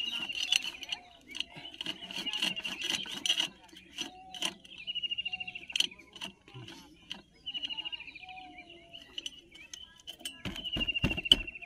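Hero Splendor Plus piston being worked into its cylinder block: scattered light metal clicks and scraping, with a few heavier knocks near the end.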